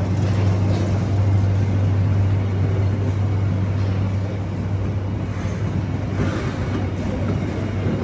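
Passenger train departing: coaches rolling past the platform with a rumble of wheels on rail, over a steady low engine hum that fades from about halfway through.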